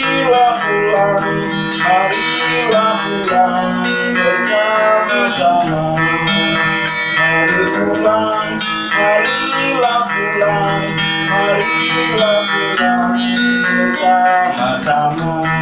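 Acoustic-electric guitar played through a small portable guitar amplifier, with chords strummed and picked in a continuous run of playing.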